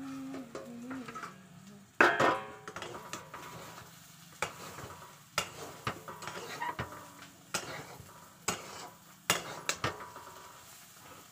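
Unboxing handling noises from a cardboard parcel box and a boxed flower pot. About two seconds in there is a loud knock with a short ring, followed by a series of sharp clicks, taps and rustles as the packaging and items are moved and set down.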